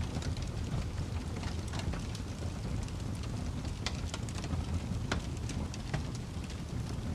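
Wood fire burning: a steady low roar from the flames, with sharp crackles and pops at irregular moments.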